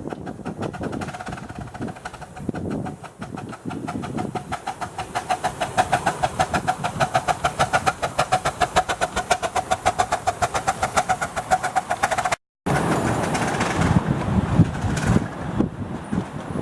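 Miniature steam locomotive working hard, hauling a heavy train of 24 empty coaches up a steep, curved gradient. Its exhaust beats come fast and even, about five a second, and get stronger from about four seconds in. Near the end they break off abruptly and give way to a rougher hiss and rumble.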